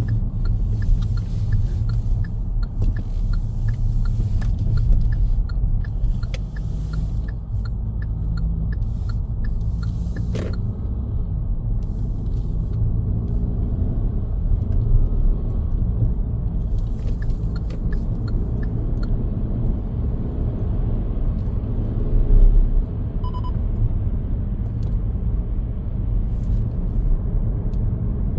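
Car driving on a road: steady low rumble of tyres and engine, with faint light ticks early on and a brief louder thump about two-thirds of the way through.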